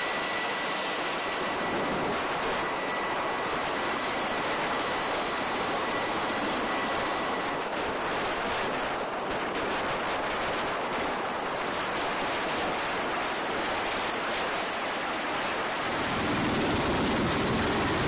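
Steady rushing noise of aircraft running on a ship's flight deck, with a thin, steady high whine through the first half. About two seconds before the end it turns into a louder, deeper rumble.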